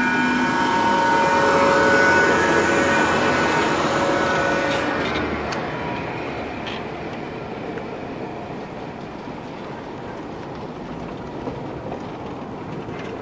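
FAUR MBxd2 narrow-gauge diesel railcar passing close by, its engine loudest about two seconds in and fading away within a few seconds, followed by the steady rolling and light clatter of the open-sided passenger carriages it hauls along the track.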